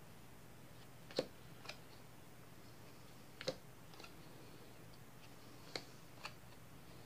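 Playing cards being flipped and laid down on a wooden table, one after another from the stock pile: three pairs of short light snaps, the two in each pair about half a second apart.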